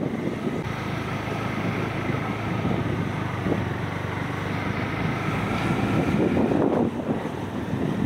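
Storm wind gusting hard against the microphone, a rough rumbling buffet that swells about six seconds in.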